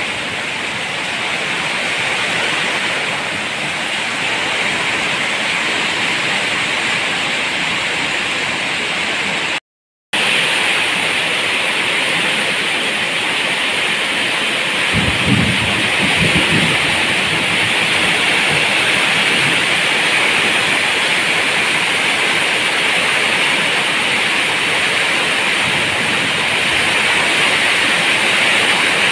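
Heavy rain falling in a steady hiss, with a short low rumble of thunder about fifteen seconds in. The sound cuts out completely for a split second about ten seconds in.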